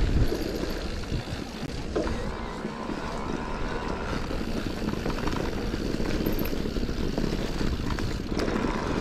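Wind buffeting the handlebar-mounted action camera's microphone, over the rumble of the mountain bike's tyres rolling on a rough dirt track.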